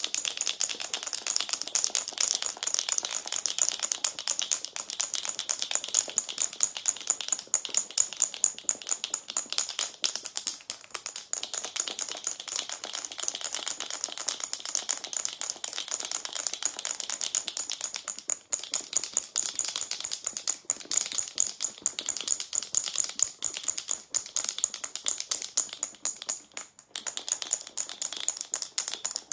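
Two marbles rattling and clacking inside a jar of 33% cream that is being shaken hard by hand, a rapid, steady clatter of clicks. The cream is still liquid and has not yet thickened into whipped cream or butter.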